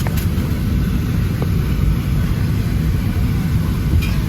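Steady low rumble inside the cabin of a Boeing 737-700 parked at the gate, the aircraft's ventilation and ground-running noise.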